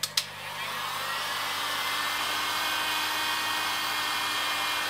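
Handheld electric heat gun switched on with a click, its fan building over the first second into a steady blowing whine while it shrinks heat-shrink tubing on wire ends.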